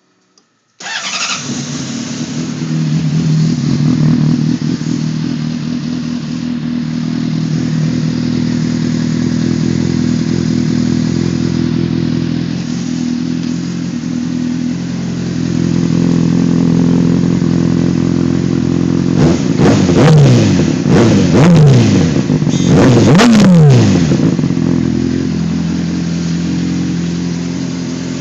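2006 Honda CBR600RR inline-four engine breathing through a Yoshimura RS5 carbon-fibre slip-on muffler. It starts about a second in and idles steadily, is blipped up in several quick revs that fall back each time about two-thirds of the way through, then settles back to idle.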